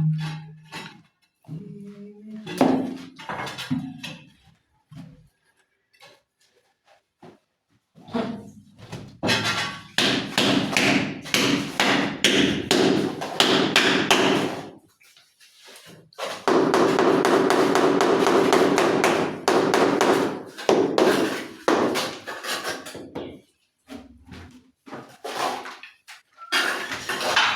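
Irregular hammer knocks and taps from building work, with a denser stretch of continuous noise about two-thirds of the way through.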